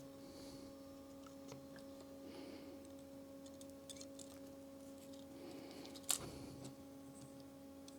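Quiet workbench handling: small clicks and taps over a steady electrical hum, with one sharp click about six seconds in.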